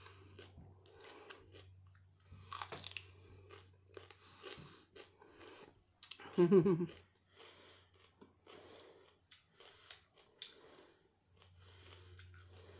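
Raw celery stalk being bitten and chewed: a run of crisp, wet crunches, with a louder crunch between two and three seconds in. About halfway through comes a short vocal sound from the eater, the loudest moment.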